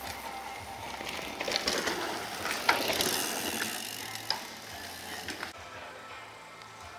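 Downhill mountain bike coasting past on a dirt track, its rear hub's freewheel ratchet buzzing as a rapid clicking, loudest about two to three seconds in and then fading.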